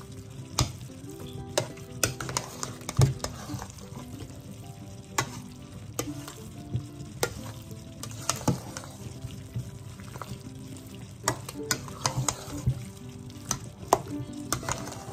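A spoon stirring and mixing potato salad in a bowl, with irregular clinks and knocks against the bowl about once or twice a second over a steady wet mixing noise.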